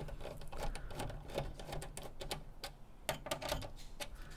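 Irregular light clicks and scrapes of a small screwdriver working against metal screws and brackets inside an open computer case.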